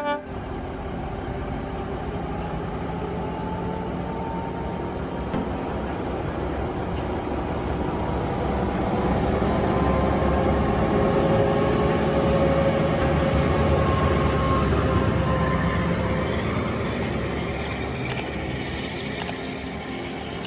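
Train running on the rails, a steady noise that grows louder through the middle and eases off toward the end.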